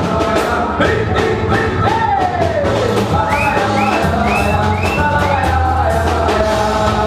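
Pagode band playing live: samba percussion keeping a quick, steady beat under melody and singing.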